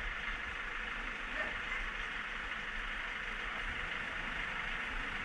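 Honda CB500X parallel-twin motorcycle engine idling steadily, with a steady hiss over it.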